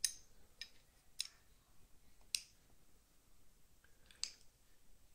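Small metallic clicks from a Boker automatic knife's steel blade and liner being handled and fitted together. There are five sharp clicks at uneven intervals, each ringing briefly, and the first is the loudest.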